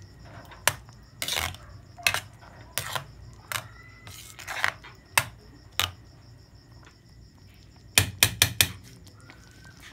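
Sharp clinks and knocks of metal kitchenware, about one a second, with a quick run of four near the end.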